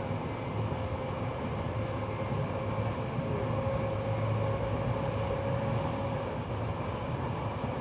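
Train running at steady speed: a continuous rumble with a faint steady whine.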